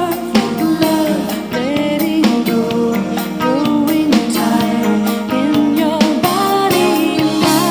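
A pop love song with drums and a wavering melodic lead, played back through a Logitech Z120 USB computer speaker and picked up by a microphone, with bass boost added.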